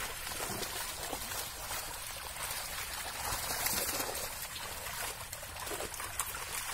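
Shallow pond water splashing and trickling in many small quick splashes, from fish flapping in a drawn-in fishing net and people wading and scooping them out with a basket.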